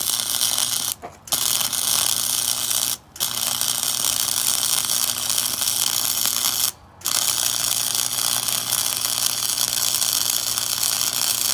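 Wire-feed welder's arc crackling and hissing steadily while laying a straight bead, with a steady hum underneath. The arc breaks off briefly three times, about one, three and seven seconds in, then starts again.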